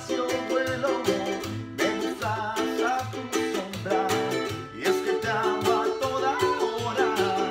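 Acoustic guitar and a small ukulele-like instrument strummed together in a steady rhythm, with a man singing over them.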